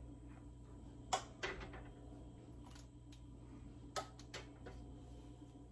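Glass canning jars clinking and knocking against each other and the pot as they are picked up and set into a pressure canner: a couple of sharp knocks about a second in and a few more around four seconds in, over a faint steady hum.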